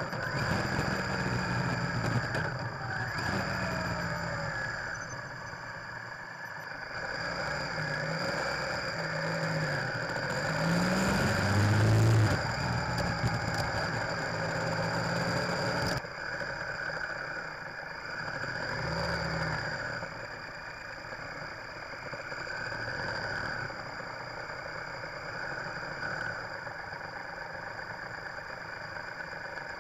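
Triumph Tiger Explorer's three-cylinder engine heard through a bike-mounted dash cam, rising and falling in pitch several times as the rider accelerates and shifts, loudest about twelve seconds in, over steady road and wind noise. It cuts abruptly about sixteen seconds in and settles to a quieter, steadier running toward the end as the bike crawls in traffic.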